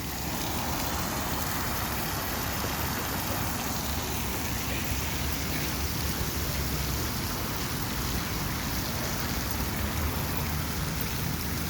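Water fountain splashing steadily, a continuous rushing hiss of falling water.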